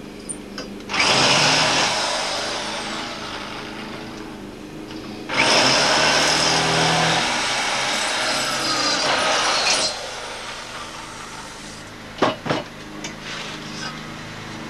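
Corded electric drill boring holes in a pair of TV stands, in two runs: the first starts about a second in and trails off, the second runs about four seconds and cuts off sharply. A couple of sharp knocks follow a little later.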